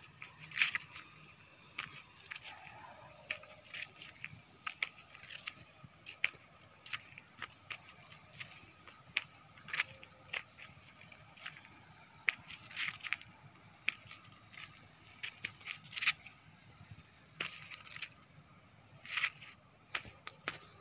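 Footsteps of a person walking on a paved road, short scuffing steps coming every half second to a second, over a faint steady hiss.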